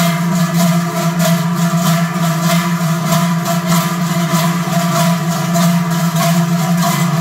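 Massed large cowbells (Treicheln) swung in unison by a column of marching bell carriers. They clang in a steady marching beat of about two strokes a second over a dense, continuous ringing drone.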